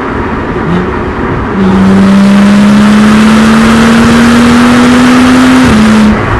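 BMW N55 turbocharged inline-six with a custom exhaust under hard acceleration. About a second and a half in, the exhaust note jumps loud and climbs steadily for about four seconds, then steps down near the end and the loud note cuts off.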